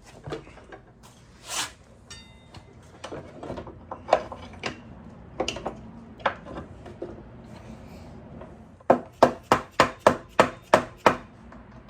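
Hand tools and metal parts being worked while a motorcycle wheel and axle are fitted: scattered clicks, scrapes and knocks, then a run of about eight sharp taps, roughly three a second, near the end.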